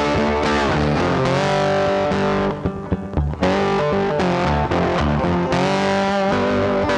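Background music led by an electric guitar with a distorted, effects-laden tone, briefly dropping back about three seconds in.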